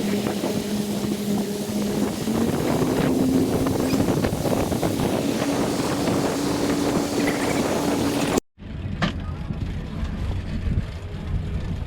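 Motorboat engine running under way, with water and wind rushing past; its pitch steps up twice as the throttle is opened. About eight and a half seconds in, the sound cuts off abruptly to a quieter low rumble.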